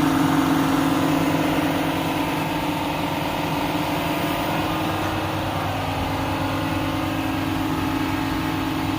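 Ford Focus ST225's turbocharged five-cylinder engine running steadily at an even speed, a constant engine drone with no change in pitch.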